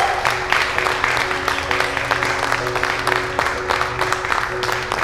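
A group of people clapping steadily, over background music with sustained held notes.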